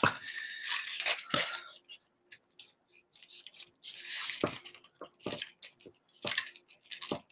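Paper rustling and aluminium foil crinkling in several short bursts as hands press and smooth a freshly hot-glued black circle down onto a large white cutout laid on foil.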